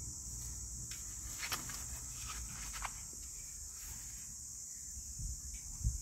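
A steady high-pitched hiss with low rumble underneath, broken by a few faint clicks and two soft low thumps near the end.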